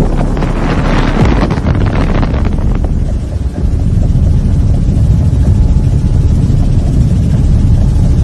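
Loud, steady rumble of wind and engine noise from an aircraft in flight. A hissier rush in the first few seconds settles into a low drone.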